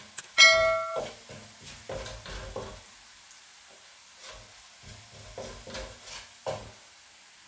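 Wooden spatula stirring and scraping minced garlic frying in oil in an aluminium wok, with faint sizzling and scattered taps against the pan. About half a second in, a short bright ringing chime is the loudest sound.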